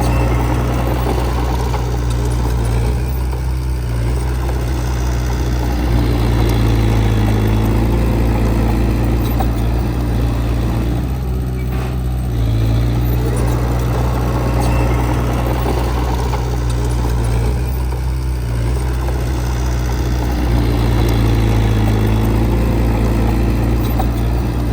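Heavy-equipment diesel engine running steadily, its note easing and building again every several seconds as the load changes.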